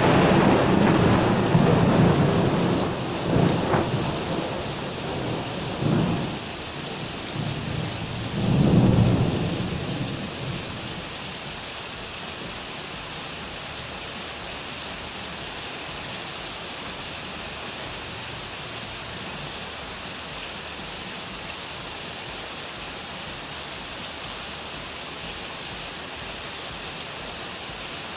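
Thunder rolling, loudest at the start and swelling again three times before fading out about ten seconds in. Steady rain falls throughout and is all that is left afterwards.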